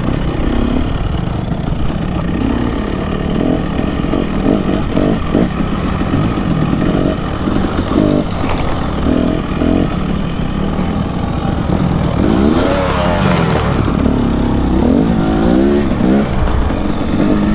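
Dirt bike engine running as the bike is ridden over a rough trail, its revs rising and falling with the throttle, most plainly about two-thirds of the way through and again near the end.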